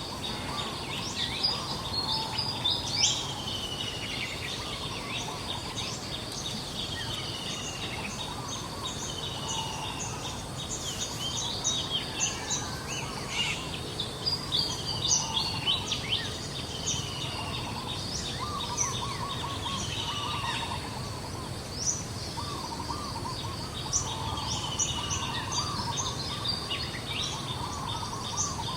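Birds chirping and calling all through, with many short chirps and repeated falling whistles. Quicker, lower warbling calls join in the second half, over a steady low background rumble.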